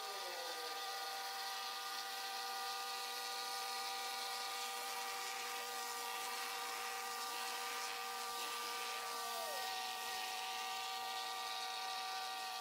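Small gas engine of a vibratory plate compactor running at a constant speed as it is walked over pavers to settle them into the sand bed. It makes a steady, even hum.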